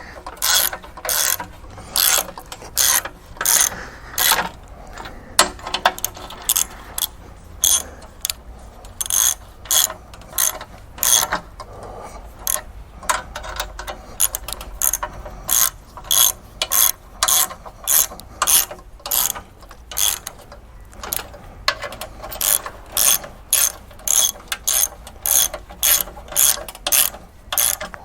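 Hand ratchet wrench clicking in short, regular strokes, about two a second with a few brief pauses, as spring plate bolts are run down tight.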